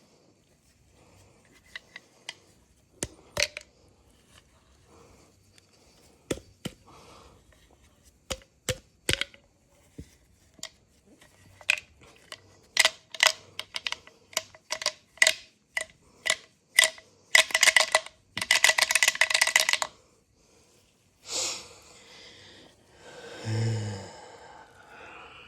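Hand work on a chainsaw: scattered clicks and knocks of tools and parts being handled, coming more often as it goes on, then a fast run of clicks for about two seconds, followed by two short scraping bursts near the end.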